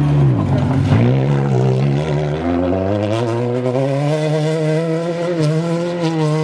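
SEAT Ibiza rally car's engine at high revs as it passes close by on a gravel stage. The note drops twice in the first second, then holds and climbs steadily as the car pulls away, with one more brief dip past the middle.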